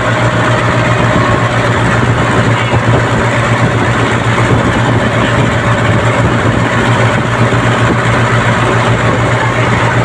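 Heavy engine running steadily at idle: an even, unchanging low drone.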